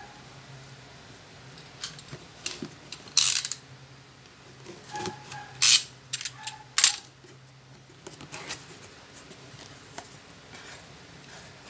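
Cardboard box being handled and opened: a series of sharp scrapes and clatters of cardboard flaps, the loudest between about three and seven seconds in, with softer rustles after.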